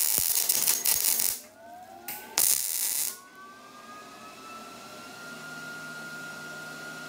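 MIG welder tack-welding a steel bracket onto a motorcycle exhaust: two bursts of crackling arc, the first about a second and a half long, the second shorter, about two and a half seconds in.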